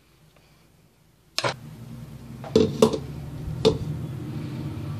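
A metal spoon clicks against a glass baking dish four times as whipped cream is spread over a cake. Under the clicks is a low steady hum that starts with the first click.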